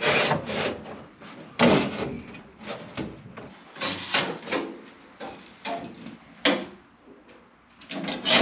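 Sheet-metal ductwork clanking and rattling as it is handled and fitted, a string of irregular knocks and scrapes.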